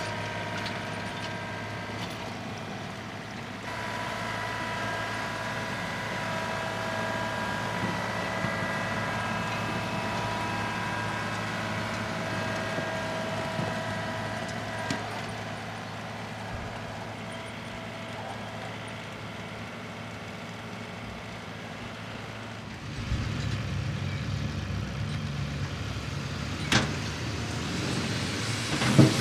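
John Deere 2038R compact tractor's three-cylinder diesel running under steady load while driving a PTO power rake through loose soil, with a steady whine above the engine. About 23 seconds in, the sound turns to a heavier, louder low rumble.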